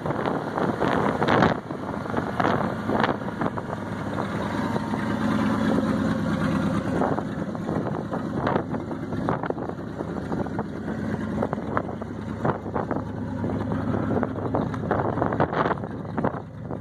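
1973 Ford service truck engine idling with a steady low hum, and wind buffeting the microphone.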